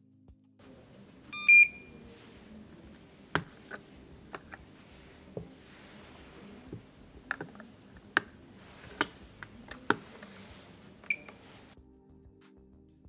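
HACH 2100Q turbidimeter beeping once, loudly, as a calibration reading completes, then the plastic clicks and knocks of its lid being opened, a sample cell swapped and the lid shut. A second, quieter beep comes near the end as the next reading starts.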